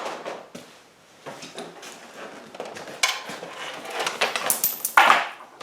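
Clicks and clattering from handling the truck's door panel and parts, getting busier after about three seconds, with metallic clinking near the end as loose coins fall out of the door.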